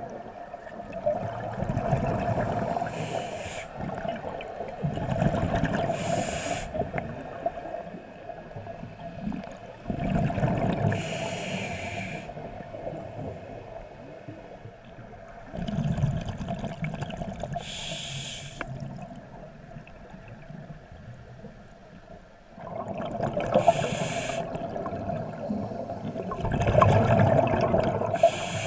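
Scuba diver breathing underwater through a regulator: a short hiss on each inhale, then a longer rumble of exhaled bubbles, about six slow, even breaths.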